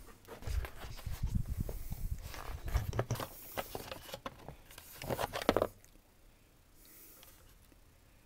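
Hands handling a plastic-bodied RC crawler truck: a run of clicks, knocks and rustling, loudest about five and a half seconds in, then it dies away.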